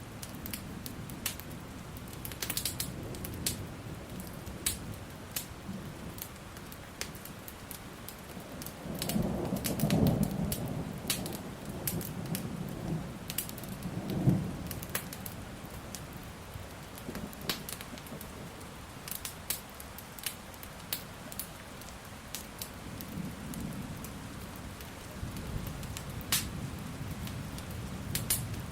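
Steady rain with thunder rumbling: a long roll swells about nine seconds in, a sharper clap comes near the middle, and another rumble builds near the end. Sharp crackles from a wood fire pop throughout.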